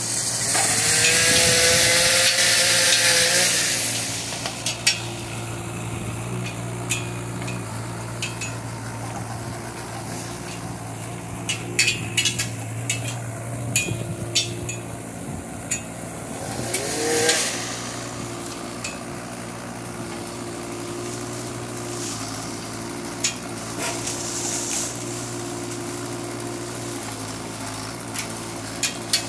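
Kubota K008 mini excavator's diesel engine running steadily. Its hydraulics give a loud rising whine and hiss under load for a few seconds at the start, and again briefly about seventeen seconds in. Scattered sharp knocks and snaps come between them.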